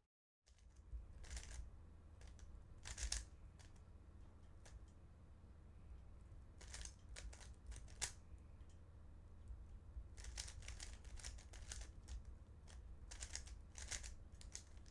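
Faint plastic clicking and rattling of a 3x3 Rubik's cube being turned by hand in a solve, in scattered bursts of quick layer turns.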